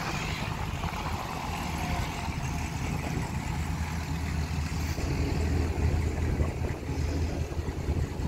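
A car engine idling with a steady low rumble that grows louder about five seconds in.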